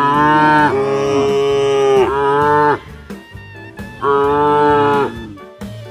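A cow mooing loudly: one long call of over two seconds at the start and a shorter one about four seconds in, over background music.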